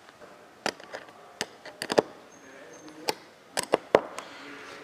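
Small ring spanner tightening the hex nuts on a wiring terminal block: about nine sharp metallic clicks as the spanner is fitted to and turned on the nuts, some in quick pairs.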